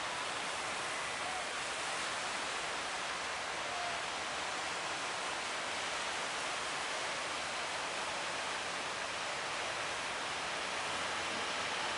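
Steady rushing noise of wind and sea water on a boat rolling in big waves.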